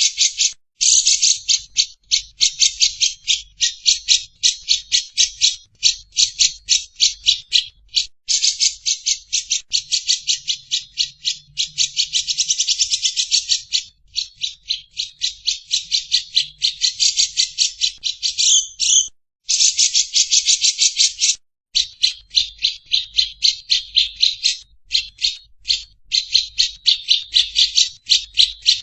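Lovebird's long 'ngekek' chatter: rapid, harsh, rattling notes at about six or seven a second, in long runs broken by brief pauses.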